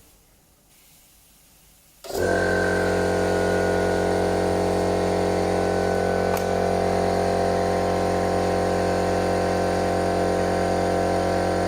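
A motor switches on about two seconds in and runs steadily at an even pitch.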